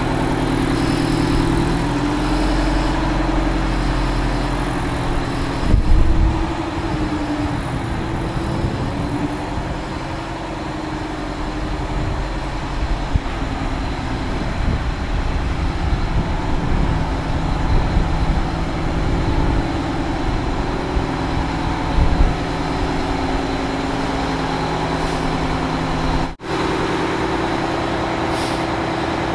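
Diesel engine of an Oshkosh HET 8x8 heavy wrecker truck running at idle, its pitch rising and falling a little early on as the truck creeps into the shop bay. There is a low thump about six seconds in.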